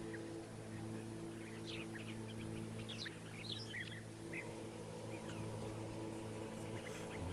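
Small birds chirping in many short, scattered calls, busiest in the middle, over a low, steady drone of background music.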